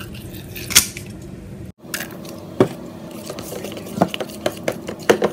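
A spoon clicking and scraping against a plastic bowl while stirring slime ingredients, in scattered sharp clicks, with a brief dropout in the sound about two seconds in.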